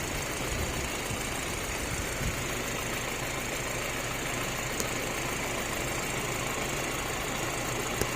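Audi A4 2.0 turbo four-cylinder engine idling steadily, with a short sharp click near the end.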